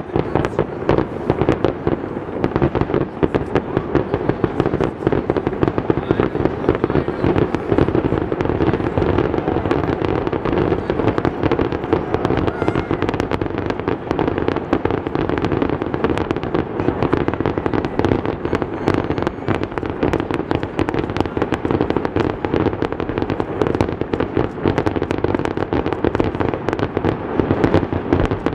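Aerial fireworks display: a continuous rapid barrage of shell bursts, many bangs and crackles a second, with no pause.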